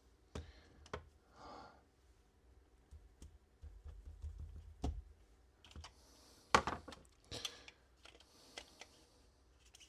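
Irregular clicks and knocks as a replacement keyboard is shifted and adjusted in its case to line up its mounting holes.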